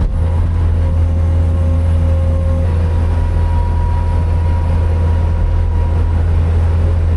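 Vehicle engine running steadily with a constant low drone.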